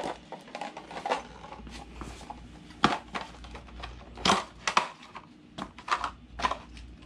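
A small plastic-and-card retail package being opened and its contents handled: irregular crackles and clicks, with a few sharper snaps about three and four to five seconds in.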